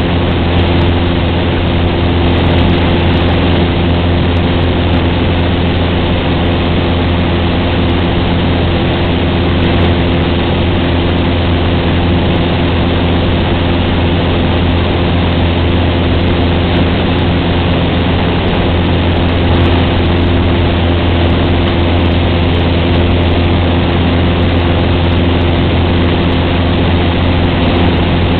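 Cessna 150's four-cylinder Continental O-200 engine and propeller droning steadily at constant power in flight: an even low hum with a few steady tones above it and no change in pitch.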